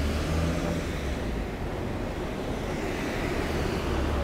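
Road traffic on a city street: a car driving along the road with steady engine and tyre noise.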